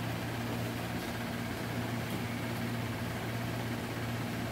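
Steady low mechanical hum with a faint even hiss underneath: room tone.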